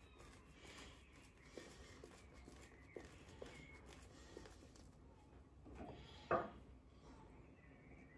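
Faint, soft brushing of a shaving brush working shaving-soap lather over the face, with a few light ticks and one brief louder swish about six seconds in.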